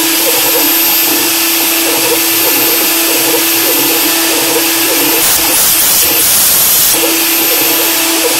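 CNC milling machine engraving aluminium: the spindle runs with a steady tone and a high hiss while the small end mill chatters irregularly as it cuts the metal. From about halfway to past two-thirds of the way through, the steady tone drops away and a louder hiss takes over for a couple of seconds.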